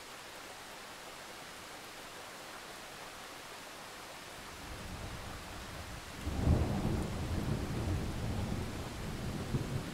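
Steady rain, then a roll of thunder that starts to build about halfway through, breaks loudest a little after six seconds in, and keeps rumbling low.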